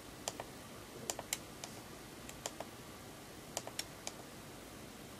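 Small buttons on the back of a Canon EOS 650D camera clicking as they are pressed to step through its menu: about a dozen short, faint clicks at uneven intervals, some in quick pairs and threes.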